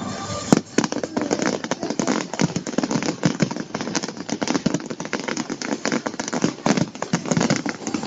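Fireworks crackling and popping in a dense, continuous barrage of many rapid small bangs.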